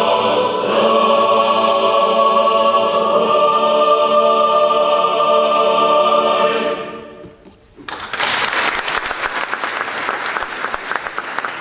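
A choir holds a final sustained chord that fades away about seven seconds in; a moment later the hall breaks into applause, which continues to the end.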